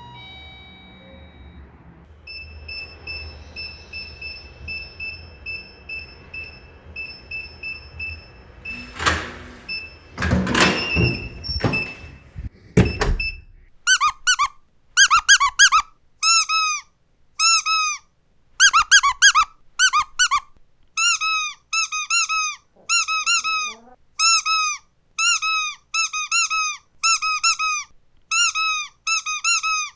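Squeaky dog toy squeezed over and over, giving short squeaks in quick runs. Before the squeaking starts there is a steady high tone and a few knocks.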